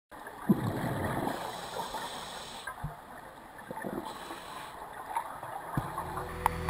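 Underwater sound heard through an action camera's waterproof housing during a scuba dive: a steady muffled rushing of water with scattered gurgles and low knocks. A soundtrack starts near the end.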